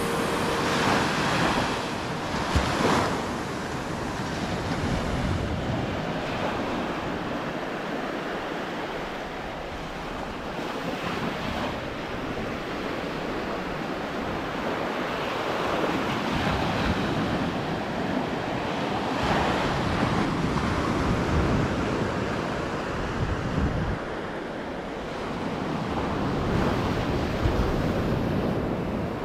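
Small sea surf breaking and washing up a sandy beach, swelling and fading every few seconds, with wind buffeting the microphone.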